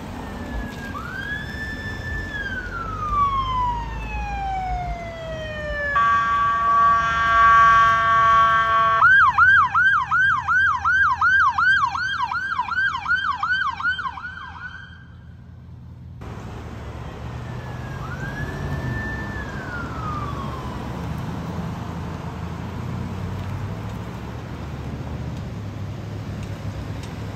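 Emergency vehicle's electronic siren: a wail that rises, holds and winds down, then a loud steady horn blast, then a fast yelp of about three sweeps a second that cuts off. A second, fainter wail rises and falls later, over steady passing traffic.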